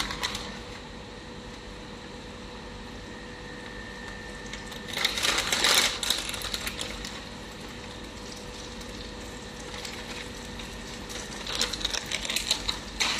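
Plastic bag of shredded cheese crinkling in two short spells, about five seconds in and again near the end, over a steady low hiss from the stovetop.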